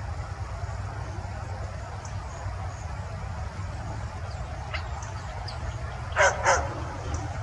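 Two short, high yelps from a canid, a third of a second apart, about six seconds in, over a steady low rumble.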